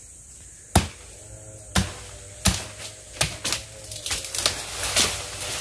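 Sharp cracks and knocks from thin woody sapling stems being cut in dry brush, about one a second at first and coming faster and closer together after about four seconds.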